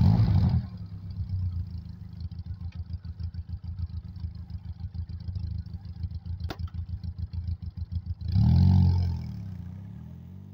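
Benelli TRK 502X's parallel-twin engine starting with a short burst of revs, then idling with an even pulsing beat. About eight seconds in it revs up as the motorcycle pulls away, and the sound fades as it rides off.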